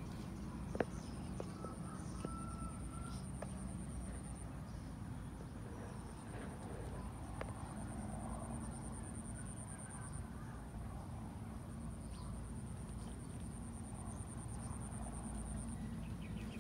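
Outdoor yard ambience: a steady high insect trill that breaks off and resumes a few times, over a low steady rumble, with a few faint clicks and a short faint call about two seconds in.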